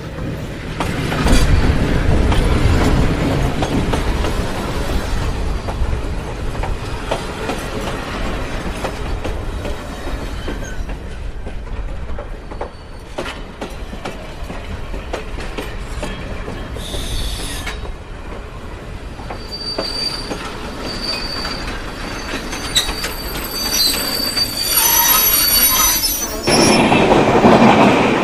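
Loaded coal freight train passing close by: a continuous rumble and rattle of the wagons with repeated clicks of wheels over the rails. High wheel squeals come in during the second half, and it grows louder over the last few seconds.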